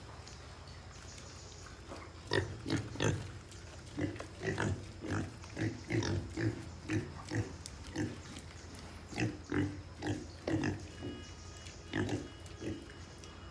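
Domestic pigs grunting and squealing in short, sharp calls, two or three a second, starting about two seconds in, while they are fed.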